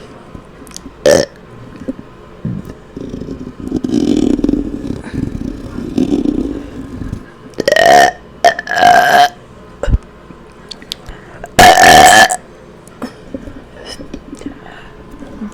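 A woman burping on command, a series of burps of varying length, the longest and loudest about twelve seconds in.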